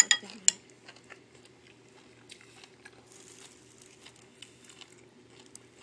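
A spoon clicks sharply against a ceramic sauce bowl a couple of times at the start. After that come faint, scattered wet mouth clicks from chewing a fresh spring roll, over a low steady hum.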